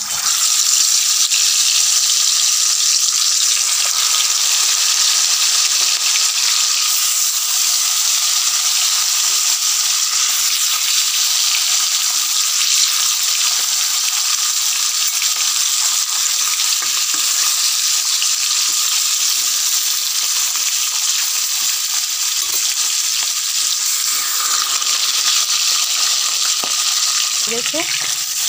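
Pieces of common carp, rubbed with turmeric and salt, frying in hot mustard oil in a kadai: a loud, steady sizzle. A spatula scrapes the pan near the end.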